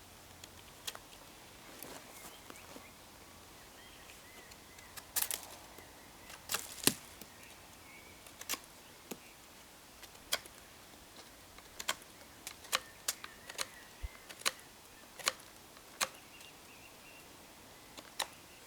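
Campfire crackling: sharp pops at irregular intervals, some in quick clusters.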